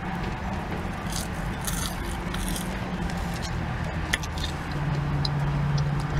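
A person eating thin French fries, with chewing and light crinkling of a paper fry cup and bag in short bursts, over a steady low hum; a stronger low drone comes in about five seconds in.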